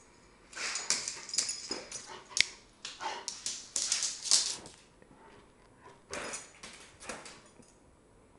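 Red Doberman pinscher making excited whining, yipping 'talking' noises in a string of short, irregular outbursts, with a brief lull about five seconds in.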